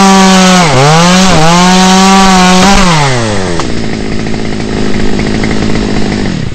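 Two-stroke chainsaw at full throttle cutting through a poplar stem, its revs dipping twice as the chain bites. About three seconds in the throttle is released and the revs fall away, leaving a rougher, noisier running sound that dies off near the end.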